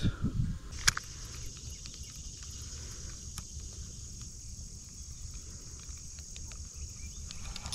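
Steady high insect buzz, like crickets, with a sharp click about a second in and faint ticks from a spinning reel being wound.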